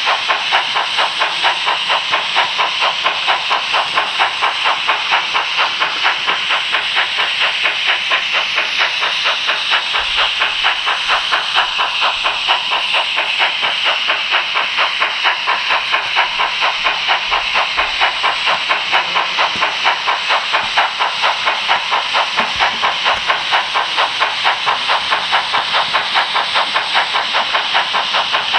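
H0 model train running along the track, heard from on board: a steady hiss with a fast, even pulsing that keeps on without a break.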